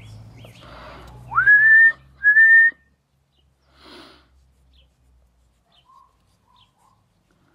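A person whistling two loud notes in quick succession, each sliding up and then held, starting about a second and a half in.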